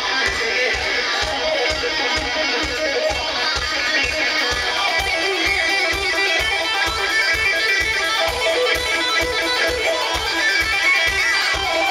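Live rock band playing loud. A Les Paul-style electric guitar through an Orange amplifier plays a riff over a steady, driving low beat of several thuds a second.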